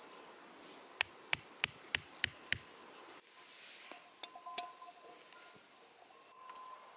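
Six quick knocks, about three a second, of wood striking wooden stakes being driven into the ground. Then a stainless steel camping cup clinks as it is handled and set down among the stakes, ringing briefly.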